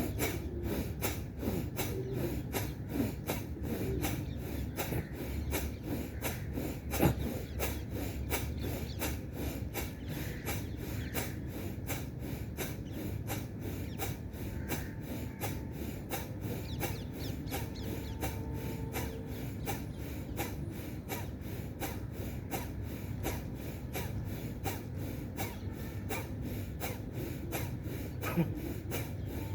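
A man doing Bhastrika (bellows breath): rapid, forceful breaths in and out through the nose, one after another in a steady, even rhythm.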